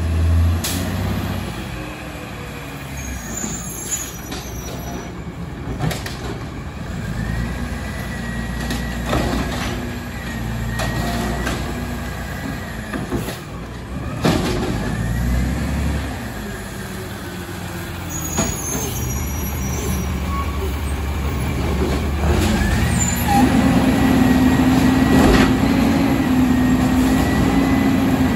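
Automated side-loader garbage truck's diesel engine running as the truck works its way up the street, with several short air-brake hisses. The engine grows louder and steadier over the last few seconds as the truck pulls up close.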